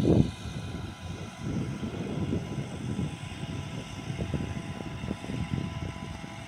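Massey Ferguson 385 tractor running steadily as it pulls a rotavator through the soil, a faint steady whine over its sound. A low, gusting rumble of wind on the microphone is loudest at the very start.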